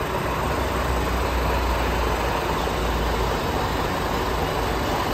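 Heavy truck diesel engine idling steadily in a large hall, its deep low hum easing off about three seconds in.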